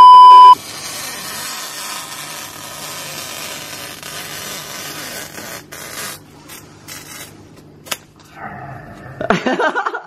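A loud, steady TV test-card tone that cuts off sharply about half a second in, followed by a steady hiss with a low hum and a few faint clicks.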